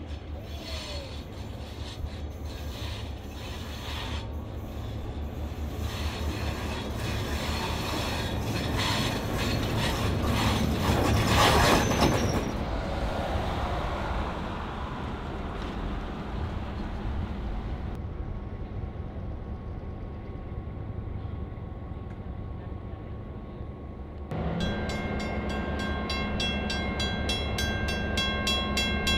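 NSW 42 class diesel-electric locomotive 4204 running past with its passenger train, with rapid, even clicking that grows louder to a peak about twelve seconds in. The sound changes abruptly twice, and in the last few seconds the locomotive is close by: a steady engine note with fast regular ticking over it.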